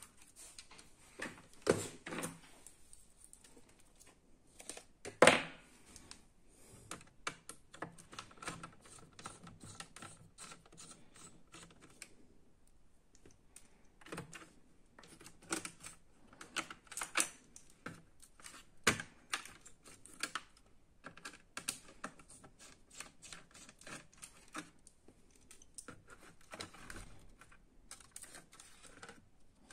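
Scattered small clicks and taps of hands and a screwdriver working on the plastic and metal parts inside an opened laptop, including freeing ribbon-cable connectors, with a louder knock about five seconds in.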